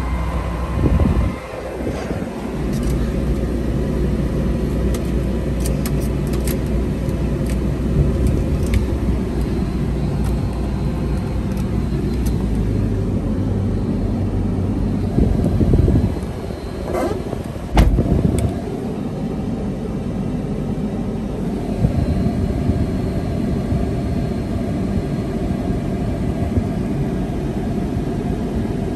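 RAM 5500's 6.4-litre gas V8 idling, heard from inside the cab, with the air-conditioning blower running on a cold vent test. A few brief knocks about a second in and again around seventeen seconds in.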